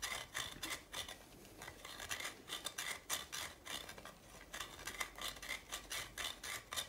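Soft pastel stick twisted against the metal mesh grater of a pastel sharpener, a quick run of faint scraping strokes as the tip is ground to a point, with a brief pause about a second and a half in.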